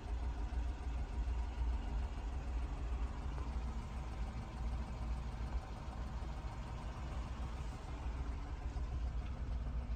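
Honda Acty kei truck's three-cylinder engine idling steadily, heard from inside the cab.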